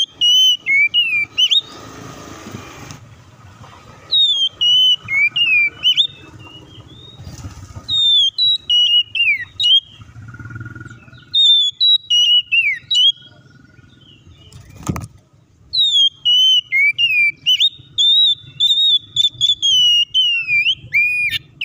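Oriental magpie-robin singing in runs of loud, rapid whistled notes that slide up and down, broken by short pauses, with a single sharp click about fifteen seconds in.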